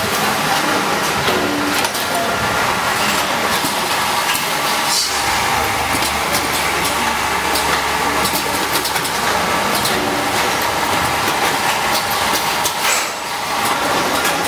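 Rice vacuum brick packaging machine running: a steady mechanical din with frequent sharp clicks and knocks. A low hum joins about five seconds in and stops about eleven seconds in.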